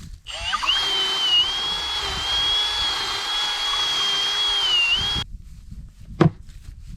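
Milwaukee electric drill boring a hole into wood, its motor whining at a steady high pitch for about five seconds before cutting off suddenly. Two sharp knocks follow, about a second apart.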